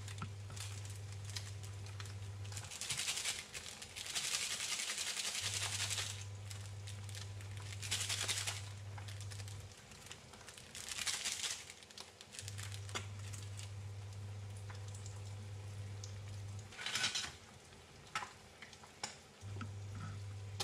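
Glass-top electric hob giving a steady low hum that switches on for about four seconds, then off for about three, again and again as it cycles its power. Short hissing sizzles from eggs frying in a pan come in between, the clearest a few seconds in.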